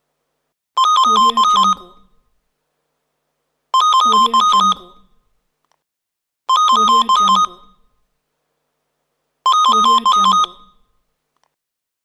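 Telephone bell ringing in repeated rings. There are four in all, about three seconds apart, each a rapid trill of about a second that quickly fades before the next.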